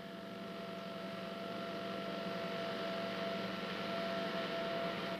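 A steady electronic hum with hiss: a few held tones over a haze of noise, swelling slightly over the first few seconds.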